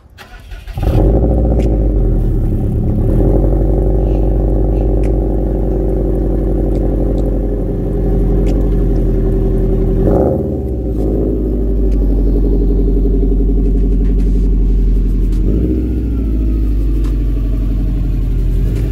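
2015 Subaru WRX STI's turbocharged 2.5-litre flat-four (EJ257) starting up about a second in and running with a steady exhaust burble, with a short rev about ten seconds in.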